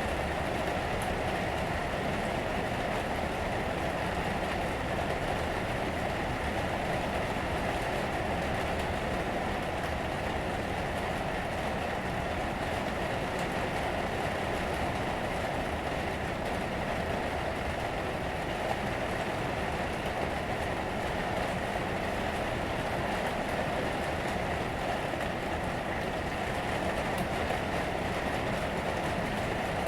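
Rain falling on the roof, heard from inside the attic as a steady, dense patter that does not let up.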